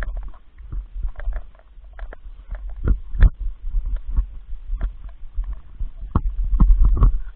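Footsteps on a gravel road: irregular crunches and knocks over a steady low rumble of wind on the microphone.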